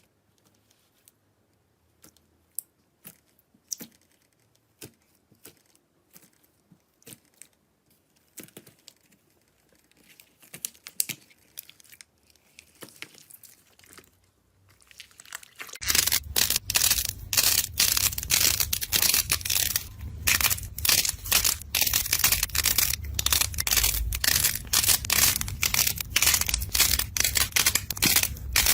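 Slime being pressed and squished by hand: scattered sticky pops and clicks at first, then from about halfway a dense, loud crackling.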